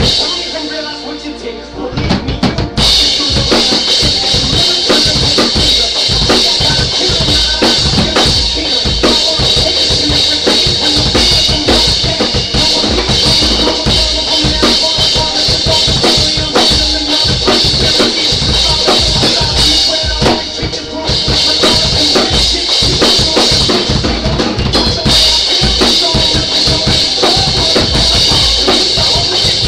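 Drum kit played to a steady rock beat, with bass drum, snare and cymbals. Lighter for the first few seconds, then a constant cymbal wash over the kick and snare, easing off briefly about two-thirds of the way through.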